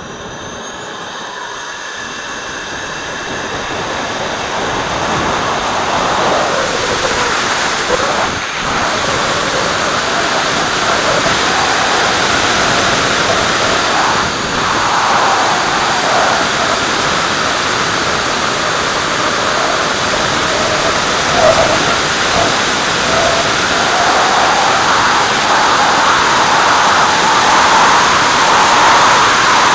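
Radio-controlled model jet's engine spooling up with a high whine that rises in pitch over the first two seconds for the takeoff roll, then running at high power under a growing rush of wind on the onboard microphone as the model climbs out and flies.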